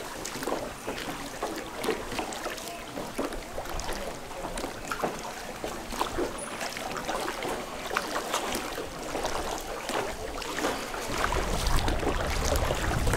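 Water splashing and trickling against a rowed sampan as the oars dip, with many small irregular splashes and drips. A low rumble builds near the end.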